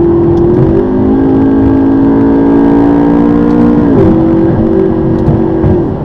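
McLaren MP4-12C's twin-turbo V8 engine heard from inside the cabin while driving. The engine note jumps up in pitch about a second in and holds with a slight rise under load for about three seconds. It falls back around four seconds in and again near the end.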